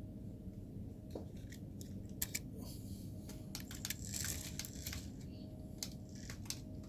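Scratchy crunching and scattered clicks of a 1:64 scale mini RC dump truck working through sand, its small electric drive running quietly.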